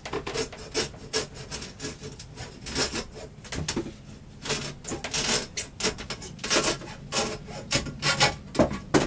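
Hacksaw cutting through a wire-reinforced toilet discharge hose: a run of repeated, uneven back-and-forth saw strokes.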